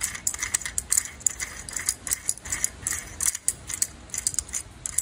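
Metal parts of an MK1 lightsaber hilt clicking and rattling as the assembled hilt is turned over in the hands, with many small irregular clicks.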